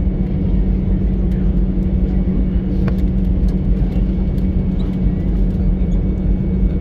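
Steady low hum and rumble inside an Airbus A320neo airliner cabin, with a few faint clicks.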